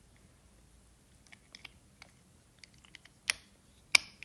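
Plastic casing of a Toyota Auris remote key fob being handled and pressed back together: a few faint plastic ticks, then two sharp clicks about three and four seconds in as the halves snap shut.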